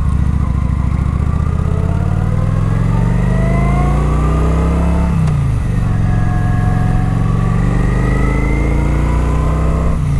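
Kawasaki Vulcan 900 Classic's V-twin on its stock exhaust, heard from inside the rider's helmet, pulling up through the revs under acceleration. About five seconds in the pitch drops sharply as he shifts up, then it climbs steadily again in the next gear.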